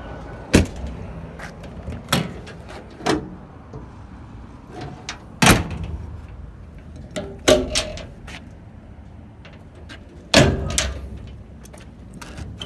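A run of about six sharp knocks and clacks, a second or two apart, from the service truck's doors and the metal paddle latches of its flatbed utility boxes being worked.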